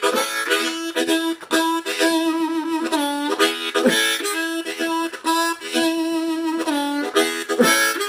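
Diatonic blues harmonica in A, played in second position: a repeated riff built on a held draw-two note, broken into rhythmic pulses, with brief moves to other notes and a wavering vibrato.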